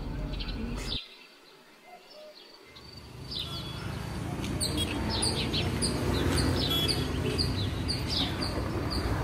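Birds chirping over a low outdoor rumble, with many short, quick high chirps. A low hum cuts off about a second in, and the rumble swells back up from about three seconds in.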